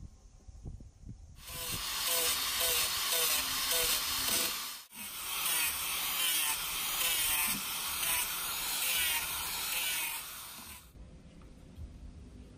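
Handheld angle grinder with an abrasive disc running against a wooden axe handle, grinding it to shape. The grinding starts about a second and a half in, drops out briefly near the middle, and stops a couple of seconds before the end.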